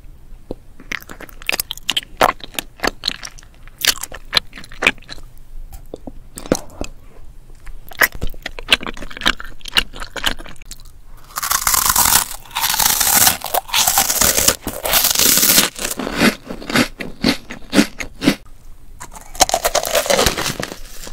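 Close-miked eating sounds: wet clicking chewing of a sauce-coated tteokbokki rice cake, then long stretches of loud crunching from bites of crunchy puffed snacks. A last big crunching bite into a cheese ball comes near the end.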